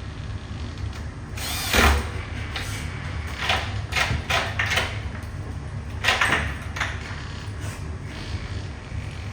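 Short metallic scrapes and clunks of a mortice lock being worked in a door, about seven of them, the loudest with a thump about two seconds in. A steady low hum runs underneath.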